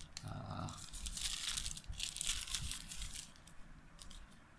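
Thin plastic packaging bags crinkling and rustling as a USB cable and a phone charger are pulled out of them by hand. The crackling is busiest in the middle and dies down near the end.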